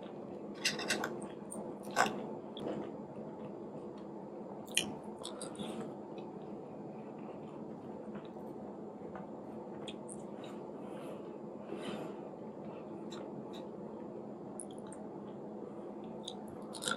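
A person chewing food with the mouth closed, with sharp clicks and scrapes of a plastic fork against a styrofoam takeout container, the loudest about two seconds in and the rest fainter and scattered.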